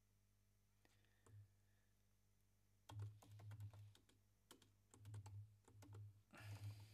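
Faint computer keyboard typing: short bursts of keystrokes after a quiet first few seconds, clustered in the second half.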